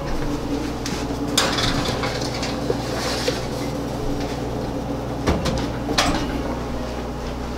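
A metal baking sheet of hazelnuts set onto an oven rack and the oven door shut: a few sharp metallic clanks, one about a second in and two close together near the end.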